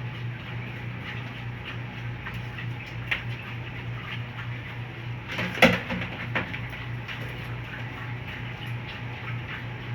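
Steady low motor hum with a few sharp knocks and clunks, the loudest about five and a half seconds in, as box fans are handled and swapped.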